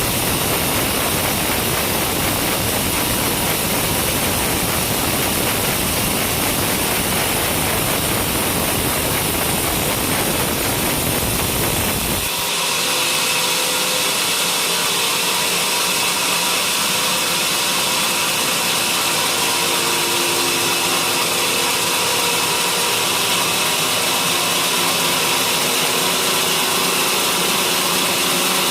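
Homemade sawmill running steadily, sawing coconut-palm wood. About twelve seconds in the sound changes abruptly, losing its deep rumble and turning higher and hissier.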